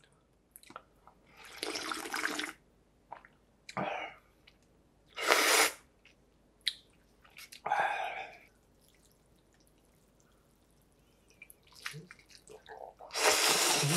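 A person slurping cold arrowroot noodles and broth (chik mul-naengmyeon) from a bowl: a series of wet slurps, the loudest about five seconds in and a long one near the end, with small mouth clicks between.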